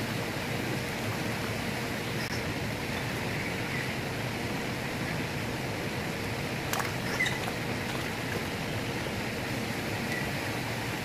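Steady rush of flowing stream water, with a few faint short clicks about two-thirds of the way through.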